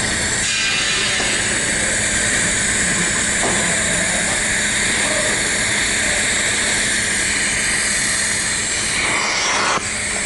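TIG welding arc on steel pipe, a steady hiss over a low constant hum, with a sudden dip near the end.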